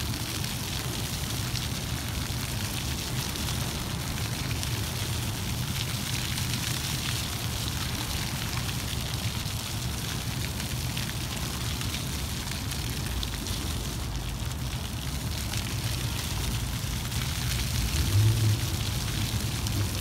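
Ground-level fountain jets spraying and splashing onto wet paving stones: a steady hiss of falling water over a low rumble, which swells briefly near the end.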